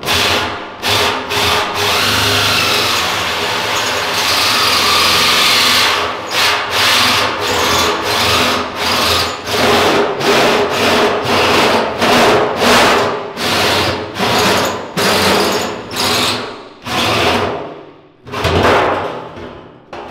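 Drill driving a hole saw through the sheet-steel top of a Chevrolet Chevette fuel tank. The cut runs continuously for about six seconds, then comes in short repeated pulses, about one and a half a second, until shortly before the end.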